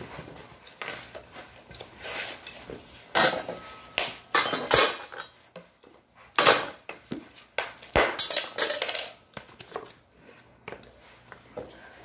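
Hover-1 Buggy kit parts being unpacked and handled: irregular clattering of frame bars and rustling of packaging, in several short bursts, busiest in the middle stretch.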